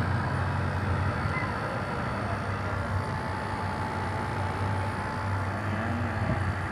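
Small Carrier air-conditioning unit running steadily during a Freon recharge: a continuous low compressor hum under fan and airflow noise.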